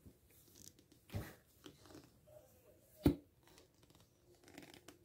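Plastic glue bottle handled and squeezed over a plastic bowl: soft crinkling and rustling of plastic, with two short sharp cracks about two seconds apart, the second the louder.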